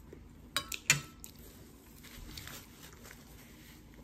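Close-up eating sounds: three quick, sharp mouth or utensil clicks about half a second in, then faint, soft chewing.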